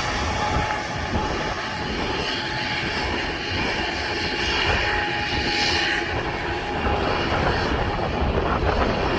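Airliner engines running as the plane passes: a steady loud rushing with a thin whine held at one pitch.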